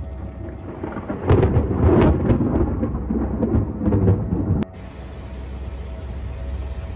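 Thunder rumbling loudly for about three seconds, starting about a second in and cutting off abruptly, over a steady low background noise.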